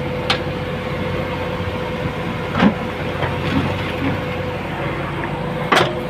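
JCB 3DX backhoe loader's diesel engine running steadily under load with a constant whine in its note as the backhoe digs around a tree stump. Three short knocks, from the bucket working the ground, come through it.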